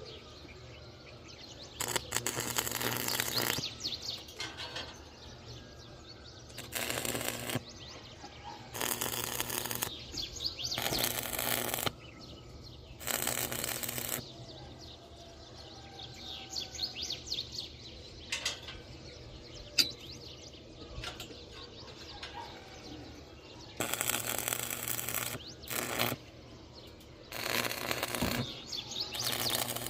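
Electric arc welding in a series of short tack-welding bursts, each lasting a second or so, with a long pause mid-way. Faint background between them, with a few bird chirps.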